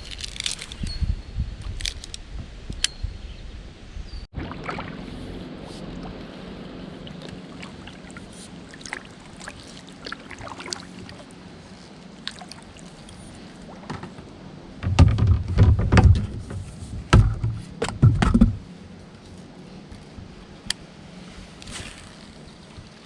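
Wind buffeting the microphone in gusts, loudest in a burst about two-thirds of the way through, over light water sloshing against a kayak and scattered small knocks and clicks from the boat and fishing gear.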